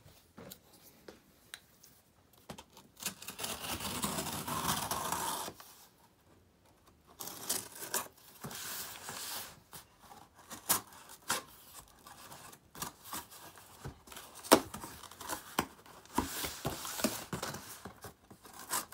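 Scissors slitting the packing tape along a cardboard box's seam, with repeated sharp clicks and short scraping, tearing noises as the blade works through; the tape is hard to cut through. About three seconds in there is a longer rustling scrape of cardboard.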